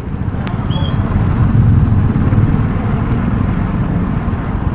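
Motorcycle engine running steadily at low speed, heard from the rider's seat as a low rumble. A sharp click about half a second in and a brief high chirp just after.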